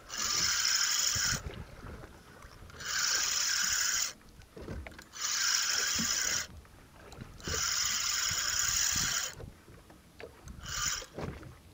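Spinning fishing reel buzzing in five bursts of one to two seconds each, with short pauses between them and the last burst brief, as a hooked fish is fought on a bent rod.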